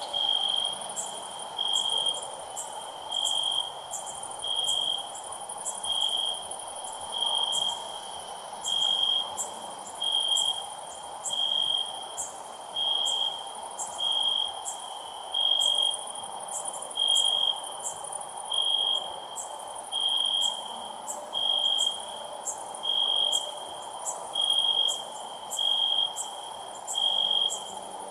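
Cricket chirping: short, even chirps in one high pitch, about one every second and a quarter, over a fainter steady high hiss with scattered ticks.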